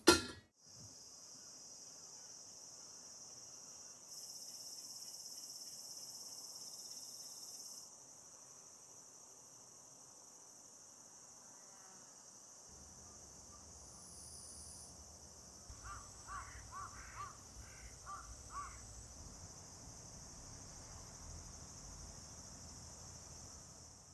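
A metal pot lid clinks onto a stainless pot at the very start. Then a steady chorus of crickets and other insects runs on, louder for a few seconds early on, and a crow caws about eight times in quick succession a little past two-thirds through.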